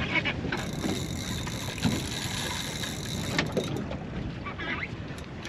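Wind buffeting the microphone over water and boat noise at sea, with scattered knocks and crackles.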